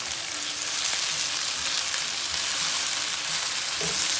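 Raw chicken pieces sizzling in hot oil with sliced onions and carrots in a stone-coated frying pan, stirred with a silicone spatula. The sizzle is a steady hiss, with light scraping from the stirring.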